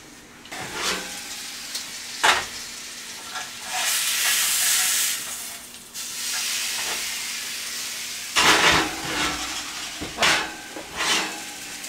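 Broiled steak sizzling in a hot grill pan on the stovetop; the sizzle swells about four seconds in. Several sharp clanks of metal tongs and the pan against the stove break in.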